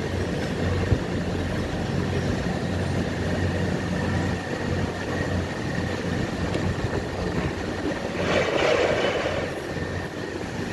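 Steady low machine hum, with a single sharp click about a second in.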